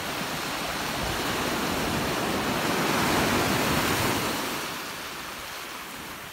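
Ocean surf breaking and washing up the beach, a rushing noise that swells to a peak about three seconds in and then fades away.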